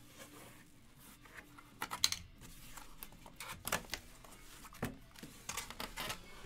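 Cardboard box being handled: scattered scrapes, taps and rustles of the flaps and packaging, the sharpest about two seconds in.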